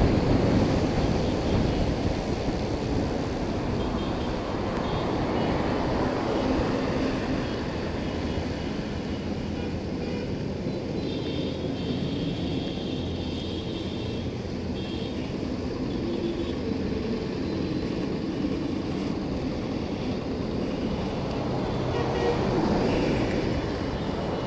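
Motorcycle riding along a highway: wind rushing over the microphone mixed with engine and road noise, louder at first and easing off after a few seconds.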